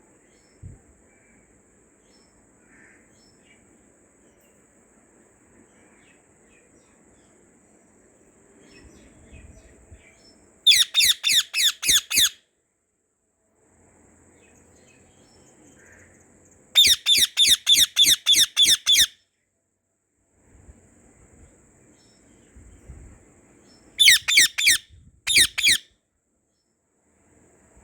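Indian ringneck parrot calling in three bouts of loud, rapidly repeated shrill notes, about five a second, with pauses of several seconds between bouts.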